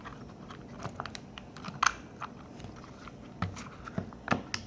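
Small hard plastic clicks and scrapes as a power window switch's plastic cap is pushed and worked onto its switch, a few sharper clicks spread through, the clearest nearly two seconds in and near the end.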